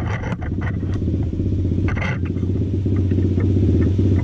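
A steady engine drone runs throughout. It is broken by a few sharp metallic clicks and clinks of hand tools during the first second and again about two seconds in.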